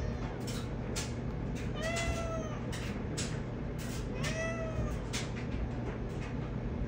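Manx cat meowing twice, about two and about four seconds in, each call rising then falling in pitch: a cat asking for a closed door to be opened. A steady low hum runs underneath.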